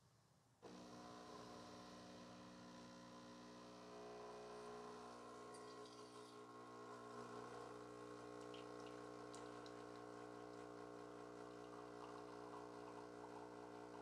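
Breville Barista Touch Impress espresso machine's pump running as it extracts a double shot of espresso: a faint, steady hum that switches on suddenly about half a second in.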